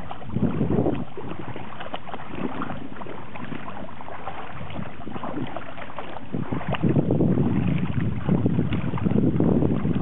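Pembroke Welsh corgi wading through shallow river water, its legs splashing in quick, irregular strokes. Wind rumbles on the microphone about a second in and again from about seven seconds on.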